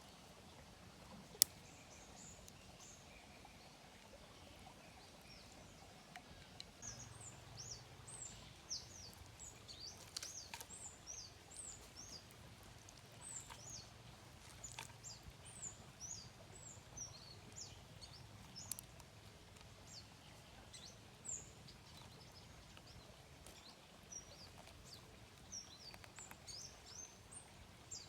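Small birds chirping in the forest: many short, high chirps come thick and fast from about six seconds in, over a faint steady background, with one sharp click about a second and a half in.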